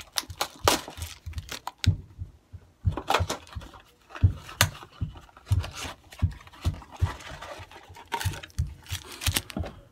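Irregular taps, knocks and rustles of a cardboard box of football card packs being opened and the packs handled.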